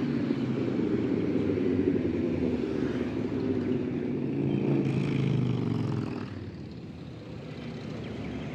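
Several motorcycles riding past with their engines running, mixed with other street traffic; the engine noise drops off about six seconds in.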